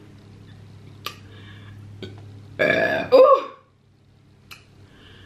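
A woman burps loudly once, for about a second, a little past the middle, with a few soft clicks from handling food before it.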